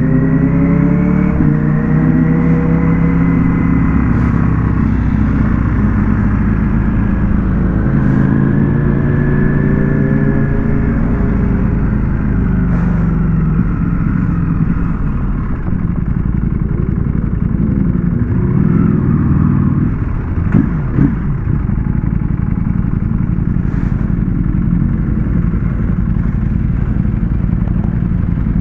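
Ducati Panigale V4 S motorcycle engine running under way, its pitch rising and falling several times as the bike accelerates and eases off, over a steady rush of wind noise.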